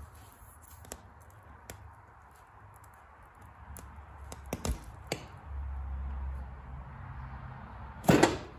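A Slime tire-plug insertion tool being worked into a puncture in a small mower tire: a few light clicks and handling sounds, then a loud, short scraping burst near the end.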